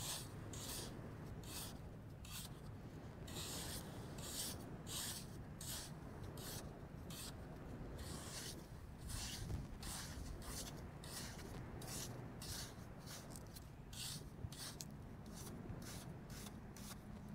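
Large spatula scraping across a wall of packed wet sand in short, repeated strokes, about two a second, each a brief rasping hiss, shaving off thin layers to cut the face flat.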